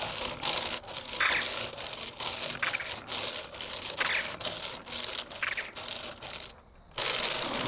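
DJI Robomaster S1 robot's mecanum wheels scraping and rattling over asphalt as it shuffles back and forth, its small hitched trailer rattling along, with several short louder scrapes. Near the end a steady rushing noise cuts in.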